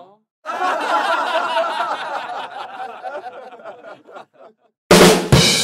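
Laughter, a run of chuckles that breaks up and trails off, then a sudden loud hit near the end.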